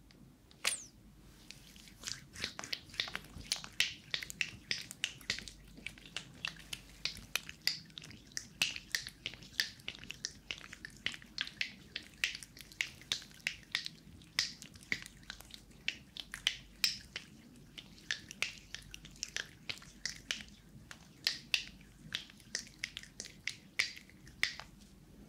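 Hand cream being worked between the palms, giving a rapid run of wet, sticky clicks and smacks, about three or four a second.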